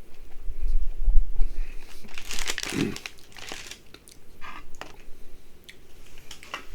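A person chewing a soft baked chicken parmesan bite close to the microphone, with crinkly, crunchy eating noises. There is a low bump about a second in, a burst of crackling around the middle with a short hum, and a few sharp clicks near the end.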